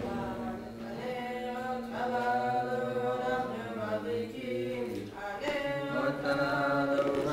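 Voices chanting in a slow melody with long held notes, the sung blessings or song that go with lighting the Chanukah menorah candles. The singing breaks off briefly about five seconds in and comes back louder.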